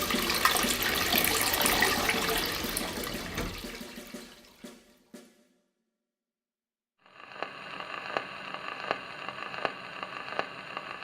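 Rushing water, loud at first, fading away over about four seconds. After a moment of silence, a steady low hum comes in with a soft tick about every three-quarters of a second.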